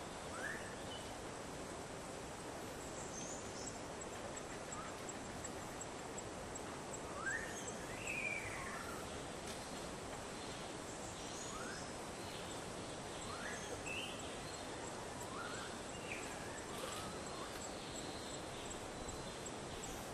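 Tropical forest ambience: a steady background hiss with short rising calls every couple of seconds and a faint, high, even ticking.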